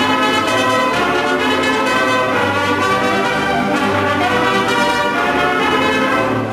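Mariachi band playing an instrumental passage: bowed violins together with trumpets, over guitars and a pulsing bass line.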